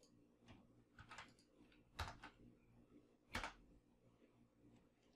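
A few faint, separate clicks of computer keyboard keys during code editing, the two loudest about two seconds and three and a half seconds in.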